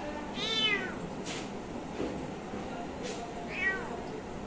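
Kitten meowing twice, two short high mews about three seconds apart, each bending up and then falling in pitch.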